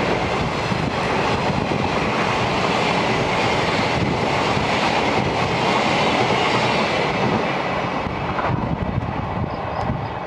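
Twilight Express sleeper coaches running through the station close by, a steady rumble of wheels on the rails that eases off near the end as the last coach goes by.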